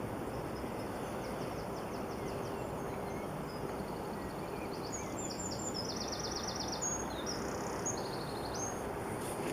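Small birds singing high, rapid trills again and again over a steady outdoor hiss.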